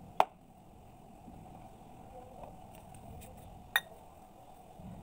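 Two short, sharp clicks about three and a half seconds apart over a faint room hiss.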